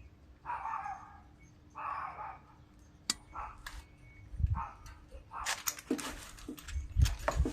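A dog barks twice in the first couple of seconds. Then come sharp metallic clicks, clanks and handling knocks as parts and tools are worked on the mower engine, loudest near the end, over a faint steady low hum.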